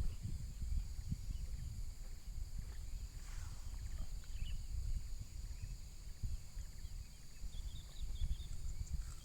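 Outdoor ambience: a steady high-pitched insect drone, with a few short bird chirps near the end, over a constant low, uneven rumble of wind buffeting the microphone.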